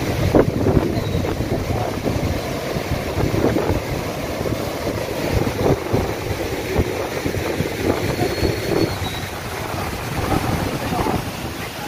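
Floodwater rushing and churning over the overflow weir of a brimming rain-fed tank, a steady roar of water, with wind buffeting the microphone in gusts.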